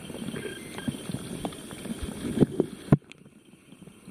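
Camera handling noise in shallow pond water: irregular low knocks and sloshing, with a sharp click about three seconds in, after which it goes quieter.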